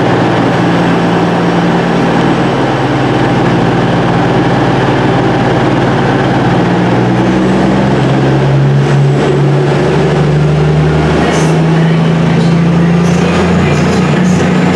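Diesel passenger train running close by, its engines a loud, steady drone whose pitch steps up about halfway through.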